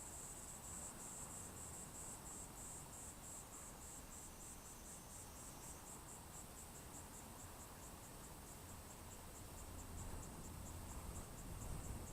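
A cricket-like insect chirping in a steady run of high, even pulses, with low wind rumble on the microphone that grows near the end.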